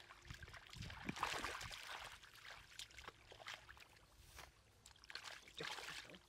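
Shallow muddy water splashing and sloshing in irregular bursts, from hands groping through the mud and catfish struggling in the water.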